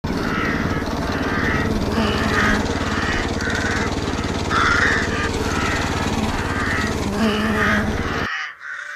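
Köppl bar mower running steadily, its engine's rapid pulsing overlaid by a chatter that swells and fades about every half second; it stops abruptly about eight seconds in.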